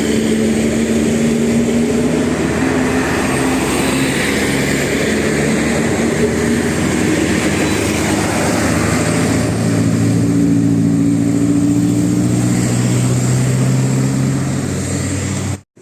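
A heavy bus's diesel engine running as the bus drives past, with a steady low drone that slowly shifts in pitch over road noise. It cuts off abruptly near the end.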